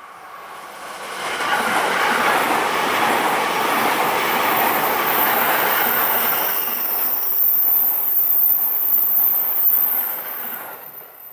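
E259 series Narita Express electric train passing at speed, its wheels running over the rails. The sound builds about a second in, holds loud for some nine seconds, then dies away near the end.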